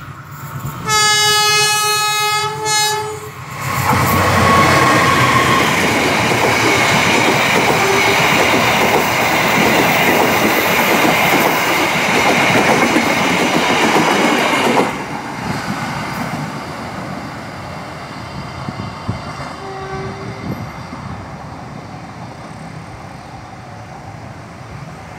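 Tawang Alun passenger train's horn sounding one long blast with a brief dip near its end, then the train passing close at speed: a loud, steady rumble and clatter of wheels on rails for about eleven seconds that drops off sharply as the last car goes by and fades away.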